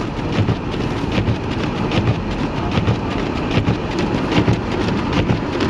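Rushing wind and road noise of an SUV driving through a blizzard, with a low rumble and a dense patter of small clicks like snow striking the vehicle.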